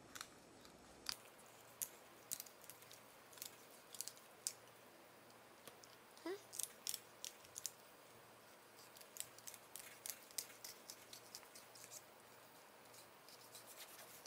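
Large kitchen knife cutting a salmon fillet off the backbone on a wooden board: faint, irregular crisp clicks and scrapes as the blade passes over the bones.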